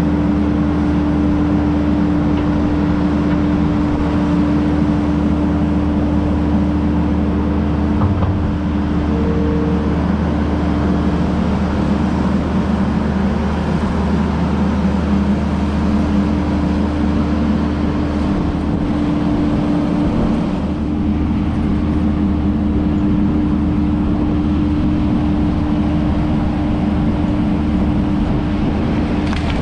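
Kubota SVL75-2 compact track loader's diesel engine running steadily under work, a constant low drone with a steady whine over it.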